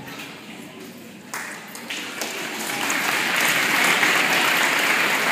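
Audience applauding, starting about a second in and building up.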